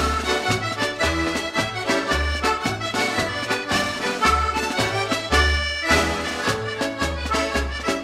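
Background accordion music with a steady bass beat.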